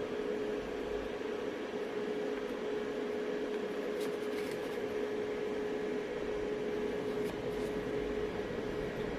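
A steady hum holding one constant mid-pitched tone over an even hiss, with a few faint clicks about four and seven seconds in.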